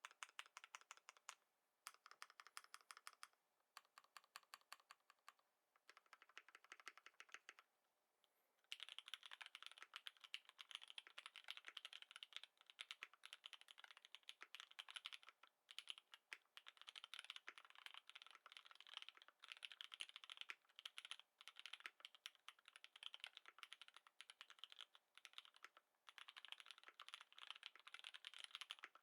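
Mechanical keyboard typing on a Lin Works Dolinger Re with lubed Cherry MX Black linear switches. Short runs of rapid keystrokes with brief gaps between them, then steady fast typing from about nine seconds in.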